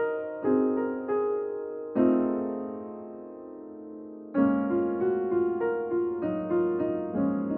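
Solo piano playing a slow piece. A few single notes come first, then a chord about two seconds in is left to ring and fade for a couple of seconds before the melody starts again.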